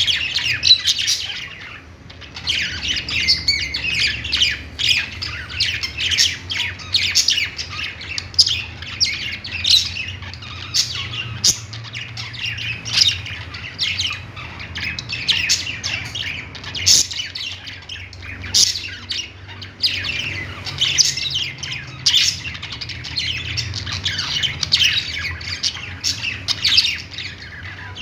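A group of budgerigars chirping, chattering and squawking all at once in a dense, nonstop stream of short high calls, with a brief lull about two seconds in. A faint steady low hum runs underneath.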